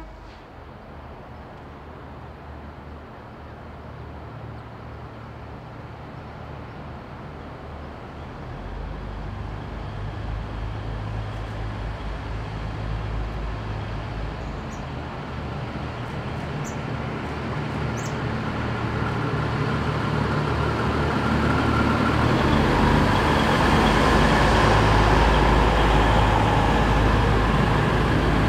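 Diesel locomotive engines rumbling as a train approaches, growing steadily louder, with a deeper swell about two-thirds of the way through. A few faint high clicks come in the middle.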